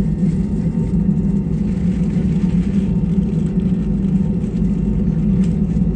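Steady low rumble and hum inside the cabin of an Airbus A320 airliner as it taxis on the ground, the engines running at low power.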